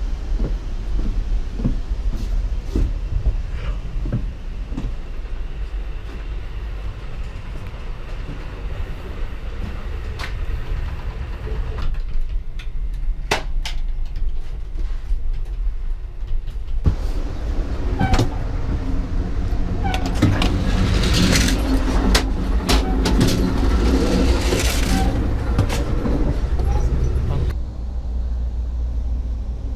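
Passenger train running, heard from on board: a steady low rumble with scattered clicks and rattles, turning louder and busier with clatter for a stretch late on, then dropping back suddenly near the end.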